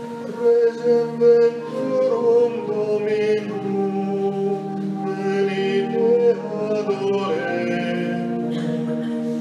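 Choir singing a drawn-out, several-note 'Amen' over held organ chords, the response to the closing prayer.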